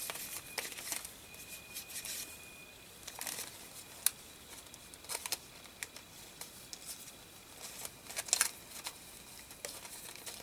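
Paper rustling and crinkling as sheets of scrapbook paper are handled and sorted through, in short scattered bursts, with a sharp tap about four seconds in.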